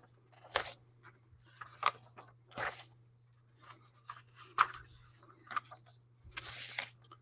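A series of short, scattered rustles and scrapes close to the microphone, about six in all, the longest near the end, over a faint steady low hum.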